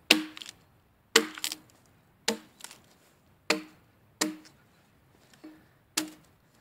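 Axe striking into a squared timber log, about one blow a second, six in all. Each is a sharp chop with a brief low ring from the wood, and some are followed by a lighter knock.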